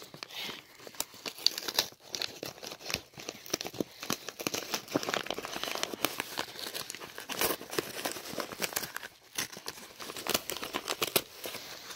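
Mailing envelope being crinkled and torn open by hand, with irregular rustling and crackling throughout.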